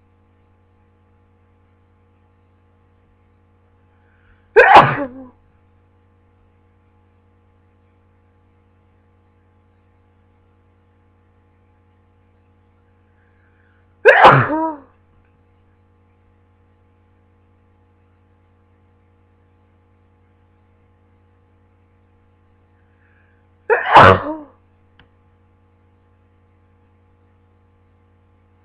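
A person with a cold sneezing three times, about ten seconds apart. Each is a short, sharp sneeze with a faint intake of breath just before it.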